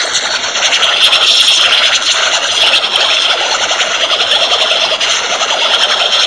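Loud, harsh, digitally distorted soundtrack audio: a dense, steady noise with a strong high hiss and no clear tune or voice.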